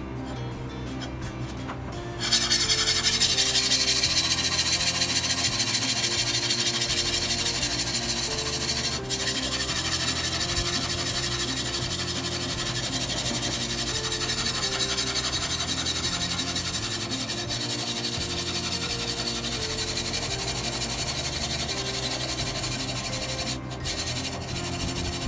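Steady abrasive rubbing on a workpiece during knife making, starting about two seconds in and pausing briefly twice, over background music with slowly changing low notes.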